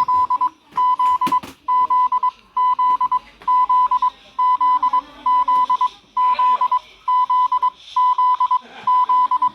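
Emergency alert warning tone: a single high-pitched beep, about half a second long, repeating roughly once a second.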